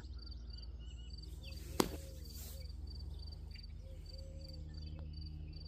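High insect chirping in a steady, evenly spaced pulse over a low steady background hum, with one sharp click about two seconds in.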